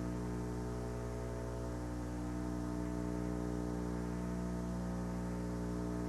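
A steady, unchanging electrical hum with many overtones, holding one pitch throughout.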